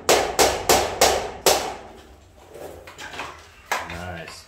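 Hammer striking the edge of a cement sheet: about five sharp blows, two to three a second, that stop after about a second and a half.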